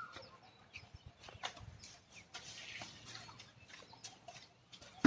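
Asian elephants picking bananas out of a plastic basket with their trunks and eating: scattered soft clicks and rustles, with faint animal calls in the background.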